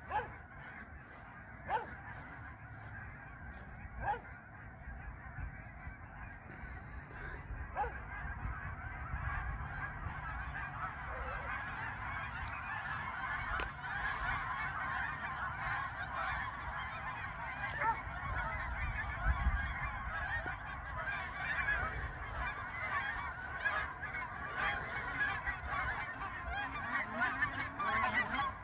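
A flock of geese honking in a dense, many-voiced chorus that grows steadily louder as the flock comes nearer.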